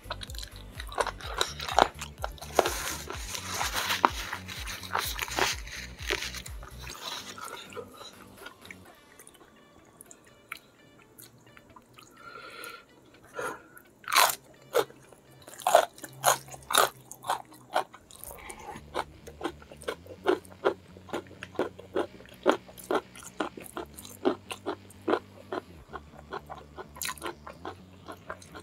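Close-miked eating: wet chewing and sucking on spiced fish-head curry eaten by hand for the first several seconds. About halfway through come crisp bites into a raw green vegetable, then steady crunchy chewing at about two crunches a second.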